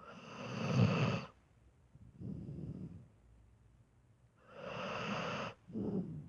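A sleeping dog snoring: two loud, whistly snoring breaths about four seconds apart, each followed by a softer breath.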